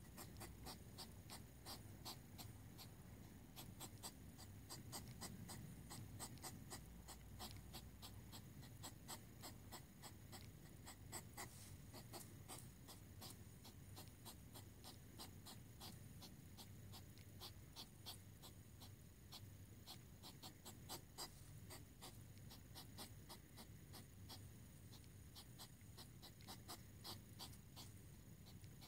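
Faint, rapid hedgehog huffing: a steady run of short sharp puffs and snorts, several a second. It is the female's huffing at a courting male.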